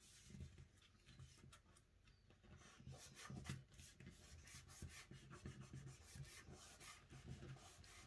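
Faint rubbing and rustling of paper cards being handled and smoothed down by hand on a tabletop, with small soft taps, busier from about three seconds in.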